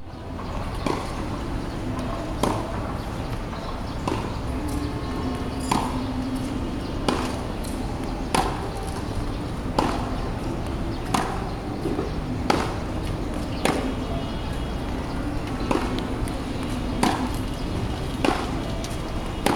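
Tennis rally: a ball struck by rackets with a sharp pock about every one and a half seconds, over steady background noise.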